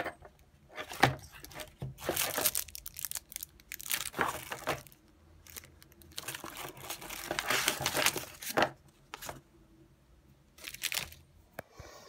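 Plastic wrapping and cardboard packaging crinkling and rustling in irregular bursts as the adapter kit's parts are handled in their box.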